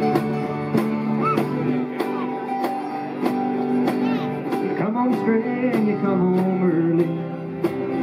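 Live acoustic country band playing: strummed acoustic guitar and mandolin over a steady beat of about two strokes a second, with a man's voice singing lead in the second half.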